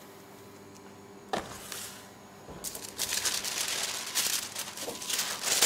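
A sheet of parchment paper rustling and crinkling as it is lifted and gathered up, starting about three seconds in, after a single light knock.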